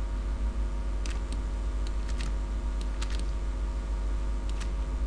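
A few computer mouse clicks, several in quick pairs, over a steady low electrical hum.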